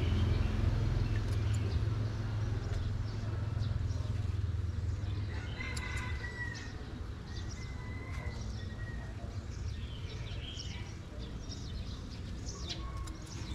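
A rooster crows a little before halfway through, one drawn-out call, then a shorter one soon after. Under it runs a steady low rumble, and light snips and clicks come from scissors cutting vegetable leaves.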